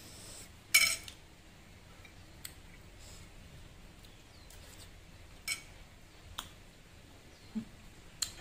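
Metal spoon clinking against a ceramic bowl about five times in short sharp clicks, the loudest about a second in, with quiet chewing between.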